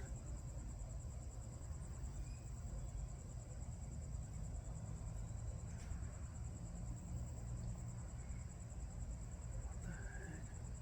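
Crickets trilling steadily in one high, fast-pulsing tone over a low, steady background rumble.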